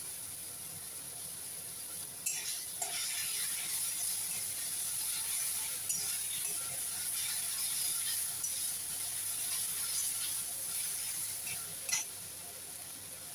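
Chopped greens sizzling in oil in a wok, with a steady hiss, while a metal spatula stirs them, scraping and knocking against the pan. The stirring starts about two seconds in and ends near the end with a sharp knock of the spatula on the wok.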